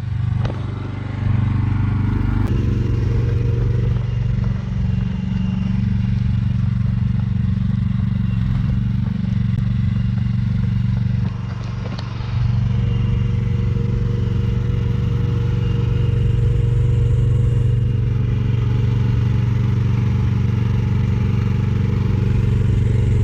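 Mini excavator's engine running steadily as the machine is driven, with light clatter; the engine note drops briefly near the start and again about halfway through.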